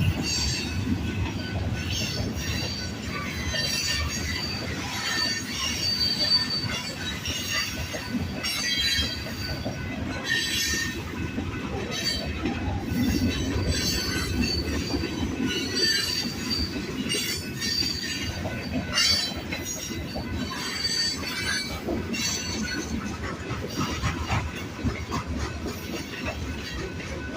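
A train rolling past, its steel wheels squealing on the rail in repeated high-pitched squeals over a steady rumble of the cars.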